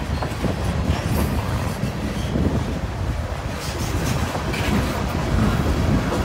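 Freight cars of a long CSX manifest train rolling past: a steady low rumble of steel wheels on rail, with irregular clicks and clacks as the wheels cross the rail joints.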